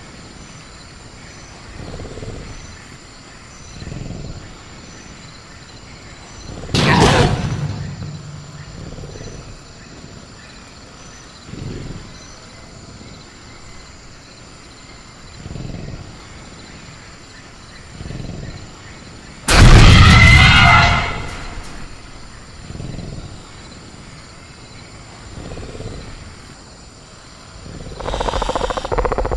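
Sound-effect ambience of a caged velociraptor: soft low growling breaths come about every two seconds over steady cricket chirring. A sudden loud crash of the raptor rattling its cage comes about seven seconds in, and a louder, longer one about twenty seconds in.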